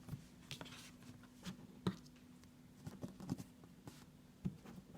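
Faint, scattered scratches and clicks of a package being worked open with scissors, over a faint steady hum.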